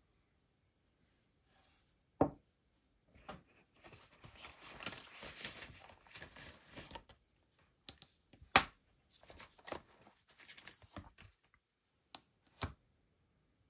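Gloved hands handling an Apple Watch case and its silicone sport bands on a table. There are three sharp taps or clicks, the loudest about eight and a half seconds in, between stretches of light rustling.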